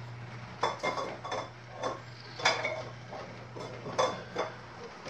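A three-rail model train rolling along its track: irregular sharp metallic clicks and clacks as the wheels pass over rail joints, over a steady low hum that stops near the end.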